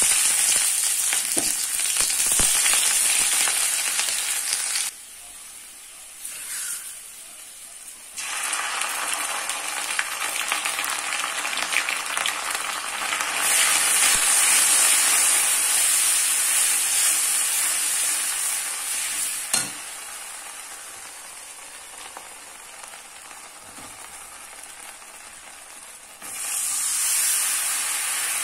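Sliced onions and spices sizzling in hot oil in a metal karahi, stirred with a spatula. The sizzle starts loud all at once, falls quieter twice, about five and twenty seconds in, and swells again near the end. There is one sharp knock about twenty seconds in.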